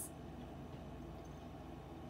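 Quiet room tone: a faint steady low hum with nothing else standing out.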